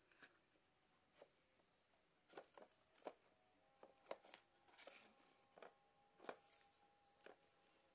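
Faint, irregular clicks and knocks of a plastic toy monster truck being handled and shifted on a carpet.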